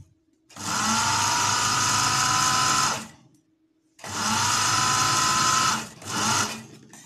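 Industrial sewing machine stitching a seam in navy trouser fabric: two runs of about two and a half and two seconds, each starting with a brief rising whine as the motor spins up, then a short burst near the end.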